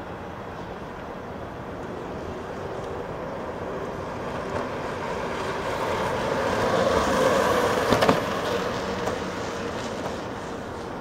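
Two streamlined recumbent racing cycles going by at speed: the whir of their tyres on asphalt and the rush of air round their shells swells to a peak about seven to eight seconds in, then fades. A few sharp clicks come at the loudest point.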